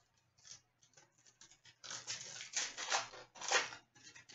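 Wrapper of a hockey card pack being torn open and crinkled: a run of crisp rustling and tearing about two seconds in, loudest near the middle, with faint crackles of handling either side.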